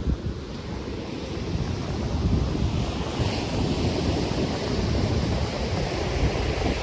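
Ocean surf breaking and washing up the beach, with wind rustling palm fronds and a low rumble of wind on the microphone. The wash of the surf swells louder about two to three seconds in.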